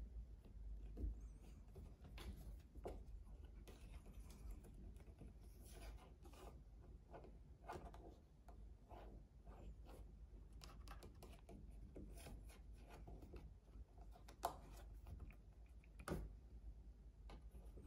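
Faint, scattered taps and scratching on a wooden wall shelf as a ragdoll cat paws at a finger, with a few sharper taps among them over a low room hum.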